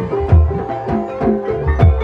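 Traditional Javanese ebeg music: tuned mallet percussion ringing out melodic notes over repeated low hand-drum strokes in a steady rhythm.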